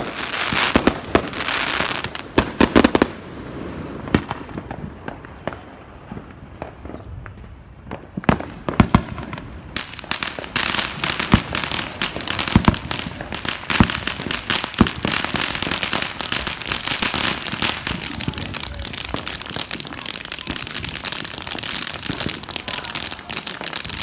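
Fireworks going off: scattered sharp bangs, then from about ten seconds in a dense, continuous crackling with louder bangs mixed in.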